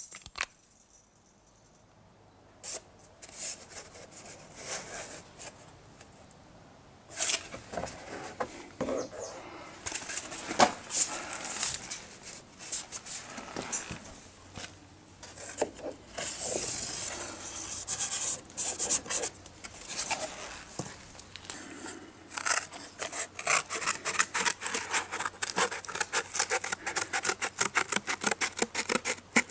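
Stiff cardboard template being handled: rustling, rubbing and tapping, then a fast run of scratchy strokes in the last several seconds.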